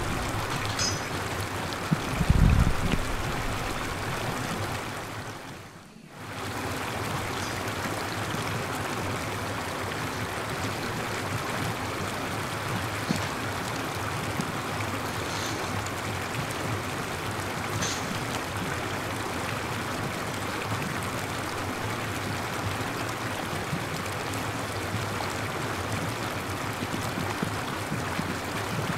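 Steady rushing hiss of running or falling water. A low bump comes about two seconds in, and the sound briefly fades out and returns a few seconds later.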